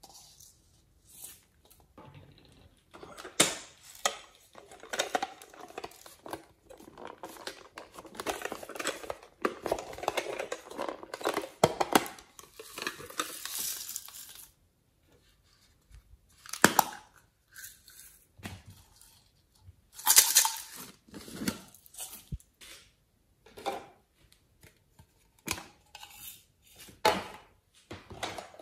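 Glitter and sequins poured from plastic containers into a glass dish make a dense, steady patter for about ten seconds. After that come scattered sharp clicks and knocks as the plastic containers and lids are handled and set down.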